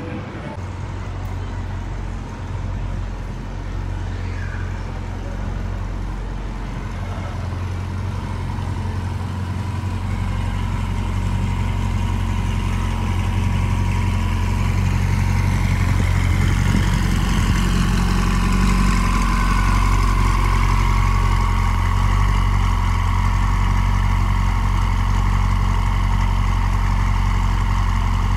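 Ferrari 488 Spider's twin-turbo V8 with an IPE exhaust, idling and burbling as the car creeps along at walking pace. It grows louder about halfway through as the car draws close.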